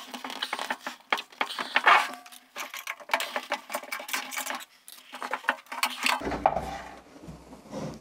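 Light metallic clinks, knocks and scrapes from a steel dust bin as its cyclone lid is unclipped and lifted off and the bin is handled.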